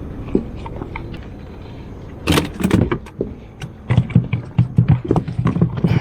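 A run of clatter and knocks, starting about two seconds in and coming thick and fast in the last two seconds, like hard objects being handled and bumped together.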